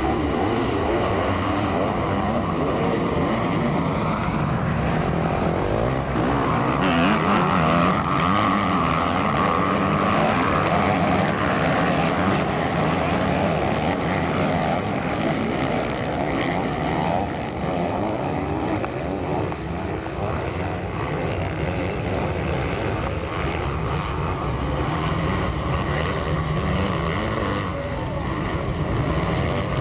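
Several motocross dirt bikes running at once, their engines revving up and down continuously.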